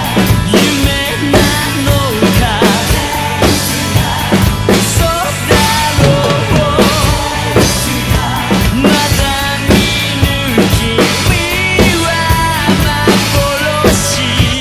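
Acoustic rock drum kit played in a busy groove, with kick, snare, tom and Paiste PST cymbal hits. It is played along to a recorded rock song whose bending melodic lines sound under the drums.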